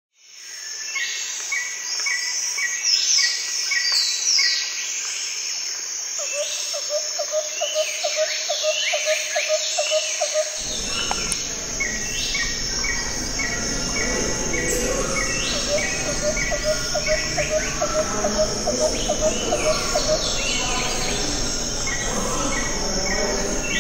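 Birdsong and insect-like chirping over a steady high whine, with repeated quick chirps and a low pulsing trill. About ten seconds in, a low hum joins underneath.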